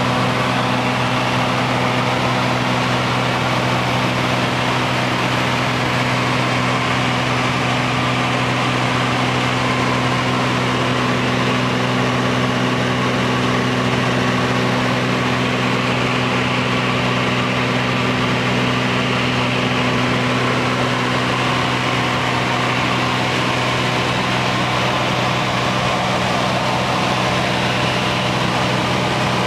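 Cessna U206G's six-cylinder piston engine and propeller running steadily in flight, heard inside the cabin as an even, unchanging hum with a hiss of airflow over it.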